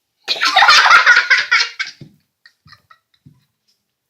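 Children laughing loudly in one pulsing burst of about a second and a half, followed by a few faint small sounds.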